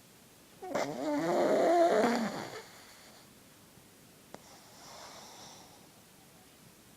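A sleeping pug snoring: one loud snore lasting about two seconds, wavering in pitch, then a much softer breath a few seconds later.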